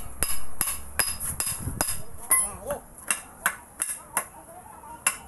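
Hand hammer striking steel on a truck's I-beam front axle steering knuckle during kingpin replacement: a quick series of sharp, ringing metallic blows, about two to three a second, some harder than others.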